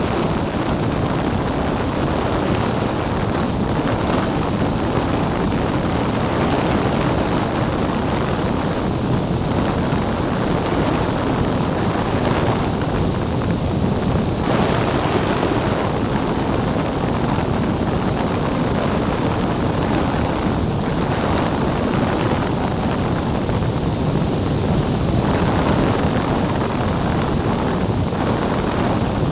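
Cessna 177 light aircraft in flight: the steady drone of its four-cylinder piston engine and propeller, mixed with wind rush, holding an even level throughout.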